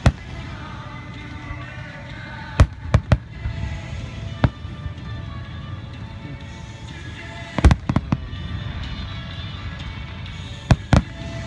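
Aerial fireworks shells bursting: sharp bangs in quick clusters, about 3 seconds in, again near 8 seconds and twice near the end. Music plays steadily underneath.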